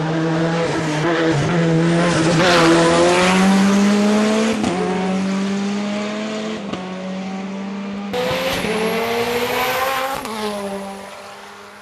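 Hill-climb race car engine running at high revs under hard acceleration. The engine note climbs and then drops sharply several times, and fades away near the end.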